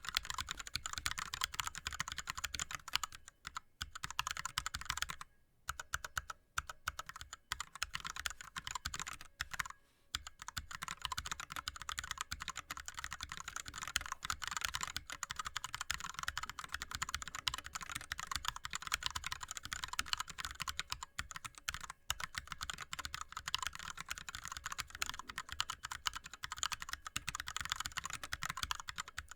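Fast typing on an ErgoDox keyboard with Cherry MX Red linear switches and blank DSA keycaps: a rapid, continuous run of keystrokes, broken by short pauses about three and a half, five and a half and ten seconds in.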